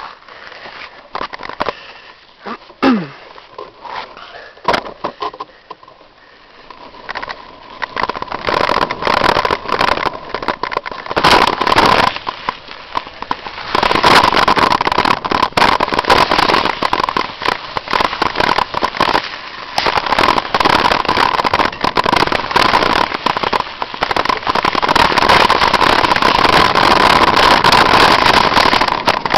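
Mountain bike ridden down a forest trail, heard from on the bike. Scattered clicks and knocks at first, then from about eight seconds in a loud, continuous rattle and rush that gets louder again a few seconds later as it picks up speed, with a steady hum underneath.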